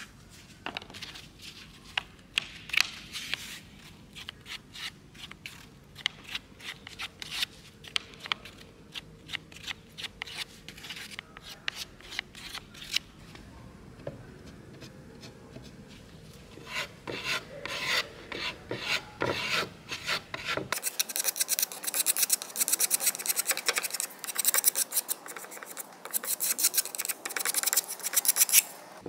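Metal putty knife scraping and spreading filler paste: first mixing it on cardboard, then working it over a plywood chair seat in repeated strokes. About two-thirds of the way in, the strokes become faster and louder.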